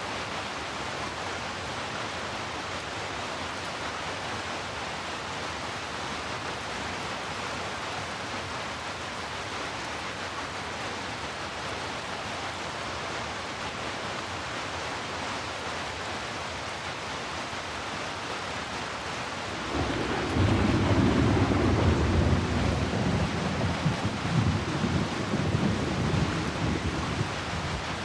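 Steady hiss of heavy rain. About two-thirds of the way through, a long low rumble of thunder comes in over the rain and rolls on, rising and falling, as the loudest sound.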